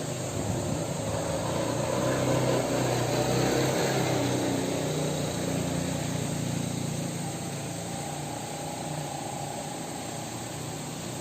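Boat engine running steadily with a low hum, under a haze of wind and sea noise that swells a couple of seconds in.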